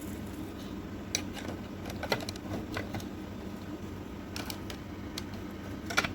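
Hard plastic toy parts clicking and knocking together by hand as they are fitted into place, a few scattered sharp clicks.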